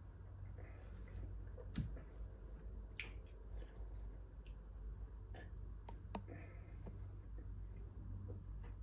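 Faint sips, swallows and small mouth and glass clicks from a man drinking beer from pint glasses, scattered over a steady low hum.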